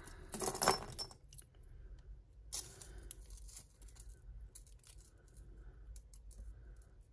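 Costume jewellery clinking and jangling as tangled chains and metal pieces are pulled from a heap: a loud clatter in the first second, another shorter clatter about two and a half seconds in, then lighter scattered clicks.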